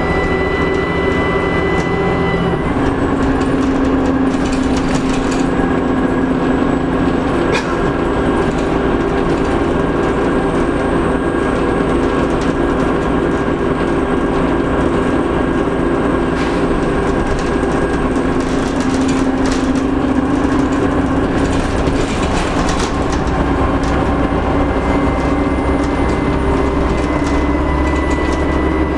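Dennis Trident double-decker bus engine running under way, with a thin high turbo whistle over the engine note. The whistle drops in pitch a couple of seconds in and climbs again near the end as the engine speed changes, with occasional rattles and clicks.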